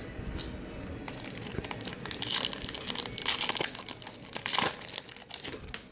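Plastic wrapper of a trading-card pack crinkling and crackling in irregular bursts as it is torn open and handled.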